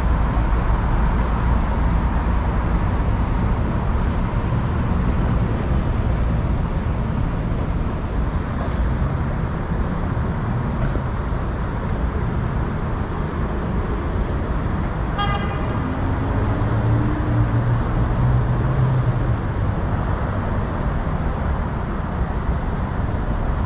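Downtown street traffic: a steady low rumble of passing cars and buses, with a short horn toot about fifteen seconds in, followed by a few seconds of a low engine drone from a passing vehicle.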